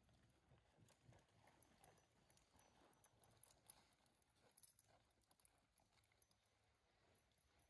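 Near silence, with faint, irregular hoof steps of a ridden horse walking on soft arena dirt.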